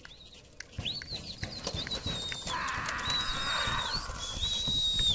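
Several long, shrill whistles that rise, hold steady and then drop, likely people whistling at pigeons during a pigeon-flying contest. A few sharp claps or knocks come about a second in, and a rushing noise runs through the middle.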